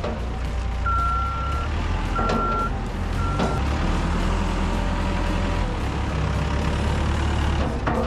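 Backhoe loader's diesel engine running steadily while its reversing alarm beeps three times in the first few seconds, each beep a single high tone and shorter than the last.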